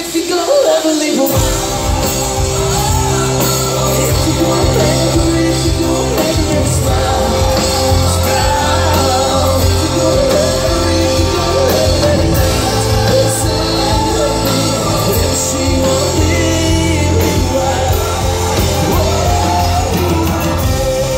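Live country-rock band playing with amplified acoustic guitar, electric guitars, bass and drums, and a male lead singer. The bass and drums come back in about a second in after a brief drop-out.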